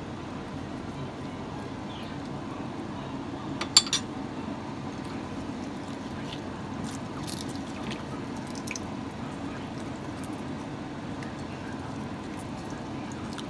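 Raw pork cubes being mixed by hand in a glass bowl of marinade: soft wet squishing of meat and liquid, with a sharp clink of a metal spoon against the glass a little under four seconds in.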